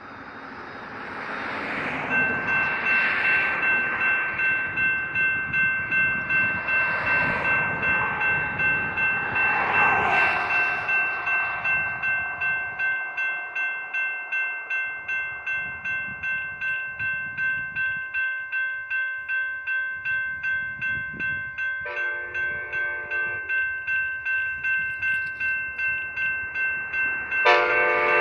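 Railroad crossing warning for an approaching train: the crossing's General Signals Type 2 electronic bell starts about two seconds in and keeps dinging in a steady rhythm, after swelling rushing noise in the first seconds. Late on, the approaching Amtrak locomotive's horn sounds a blast of about a second and a half, then another that starts just before the end.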